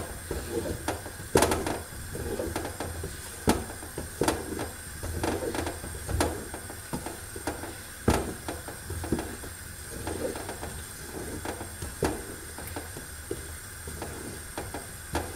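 A wooden spoon stirring thick sesame-and-hazelnut zrir paste in a large aluminium pot, churning and scraping with irregular sharp knocks of the spoon against the pot's sides, the loudest about a second and a half in and about eight seconds in. A low steady hum runs underneath.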